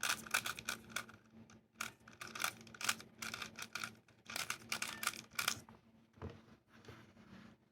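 GAN 356i speedcube being turned quickly by hand: rapid runs of plastic clicking from the layer turns, thinning out to sparser clicks after about five and a half seconds.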